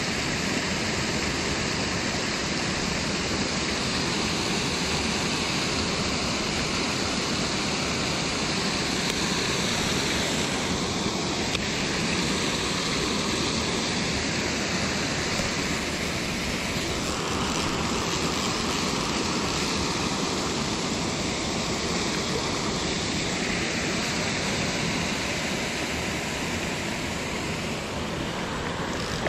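Steady rush of river water spilling over a low weir.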